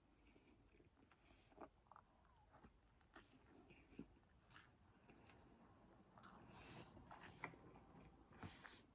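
Faint chewing and mouth sounds of a person eating, with scattered soft clicks, a little louder in the second half.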